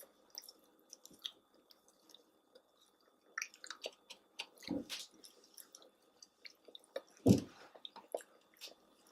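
People chewing chicken nuggets close to the microphone: soft, wet mouth clicks and smacks, with a couple of brief louder, lower sounds near the middle and about two-thirds of the way through.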